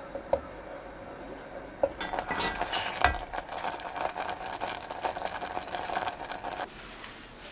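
Glutinous rice flour paste in a small saucepan, stirred and simmering: two light knocks of the spoon on the pot in the first two seconds, then a dense crackle of bubbling and stirring from about two seconds in that stops about a second before the end.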